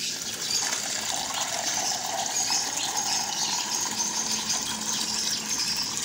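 Water poured in a steady stream into a small plastic cup, filling it.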